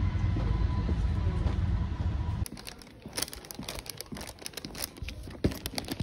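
Steady low rumble of a moving vehicle that cuts off suddenly about two and a half seconds in. After it come quieter, irregular light clicks and crinkling.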